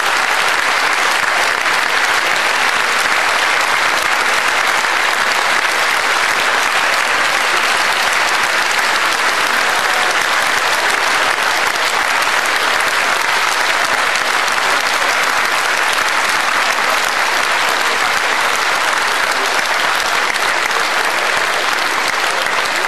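Large audience applauding steadily, a dense, sustained clatter of many hands clapping.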